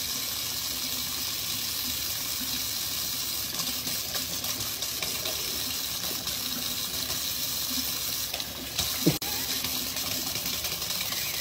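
Kitchen faucet running, a steady thin stream of water pouring and splashing into the sink basin. One short, louder sound breaks in about nine seconds in.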